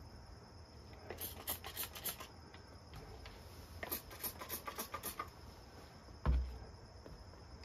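Light clicking and rubbing from working a hand pressure pump on a Stihl MS200T chainsaw's crankcase during a leak-down test, in two short bursts of quick clicks, then a single dull thump about six seconds in.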